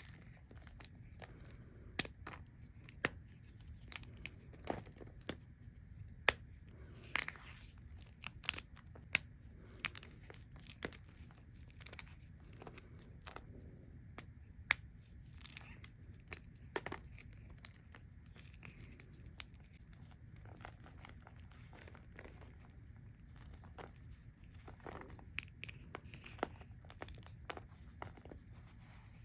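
Gym chalk being crushed and handled, giving irregular sharp crackles and crunches. They come thick and fast in the first half, thin out after the middle, and pick up again near the end.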